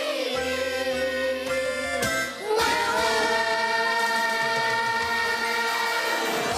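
Children's choir singing with music, ending the song on a long held chord that starts about two and a half seconds in.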